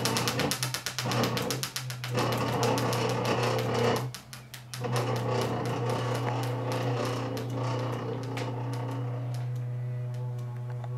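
Spinning prize wheel, its pointer flapper clicking over the pegs, fast at first and slowing to a few clicks a second as the wheel coasts to a stop. A steady low hum runs underneath.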